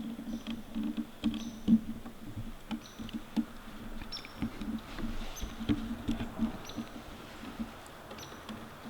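Irregular rustling and small clicking and scratching noises, with one sharper knock about two seconds in.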